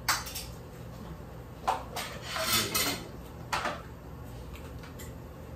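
Forks and spoons clinking and scraping against plates as people serve themselves and eat: a sharp clink at the start, single clinks at about 1.7 and 3.6 seconds, and a busier run of clatter about two to three seconds in.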